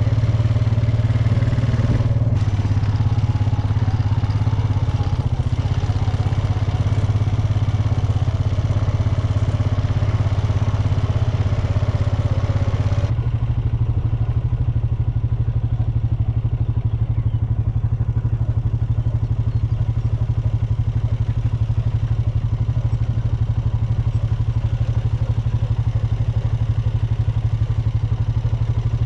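A ranch vehicle's engine running steadily while driving, with a strong low hum. About halfway through the higher rattle and noise drop away abruptly, leaving mainly the low engine drone.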